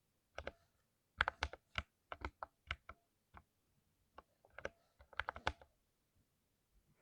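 Typing on a 60% keyboard with lubricated switches: quick keystroke clicks in uneven bursts, with a fast run early on and a dense flurry about two-thirds of the way through.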